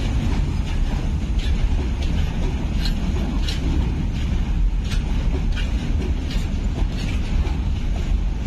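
Freight train of open box wagons rolling past: a steady low rumble of wheels on rail, with scattered sharp clicks from the wheels and rail.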